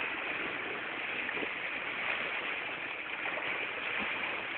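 Steady, even hiss of open-air beach ambience, the wash of the sea and air with no distinct events.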